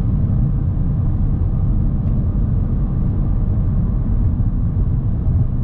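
Steady low rumble of road, tyre and engine noise heard inside the cabin of a moving 2019 Honda Civic CVT with a four-cylinder engine.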